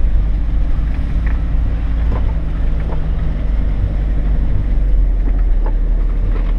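Vehicle driving slowly over a rough dirt road: a steady low engine drone and road rumble, with a few short knocks and rattles from the bumps.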